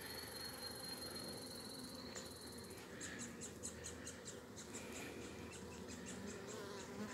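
Honeybee colony buzzing in an opened hive: a faint, steady hum of many bees on the frames.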